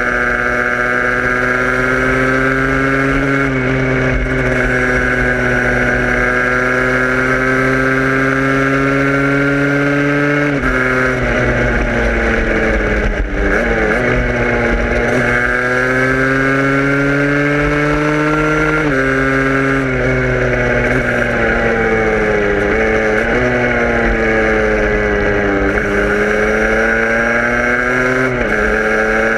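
A vehicle engine pulling steadily under load, its pitch rising slowly and then dropping sharply at each of several gear changes.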